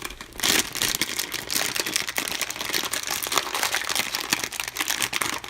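Crinkling and rustling of wrappers with many small clicks and taps as surprise eggs, candy and small plastic toys are handled.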